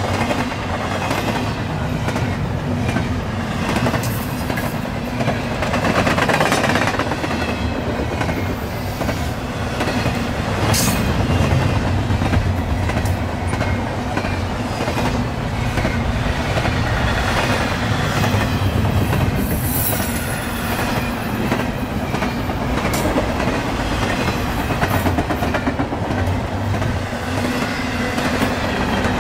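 CSX double-stack intermodal train rolling past: the well cars' wheels rumble and clatter steadily over the rails, with a few sharp clanks here and there.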